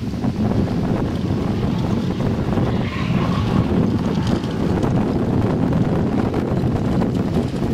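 Wind buffeting the microphone in a steady low rumble, mixed with a car engine running on the track.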